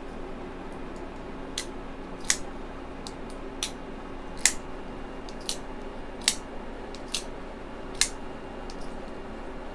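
Asher Centri folding knife with an axis-style lock being opened and closed over and over. It makes sharp metallic clicks about once a second, loosely in pairs with the second click of each pair louder, four rounds in all.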